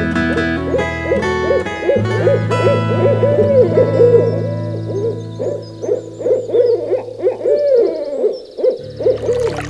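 Owl hooting: a quick series of short, arched hoots that stop shortly before the end.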